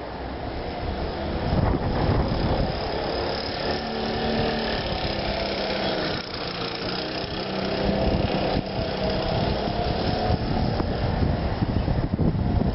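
VéloSoleX 5000 moped's small two-stroke engine running as it rides past, its note rising and falling in pitch and loudness. It is running on a freshly cleaned size-28 carburettor jet and pulls well.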